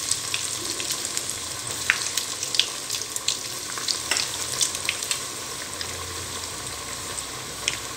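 Bread-crumb-coated baby corn deep-frying in hot oil in a kadai: a steady sizzle with frequent sharp crackles and pops.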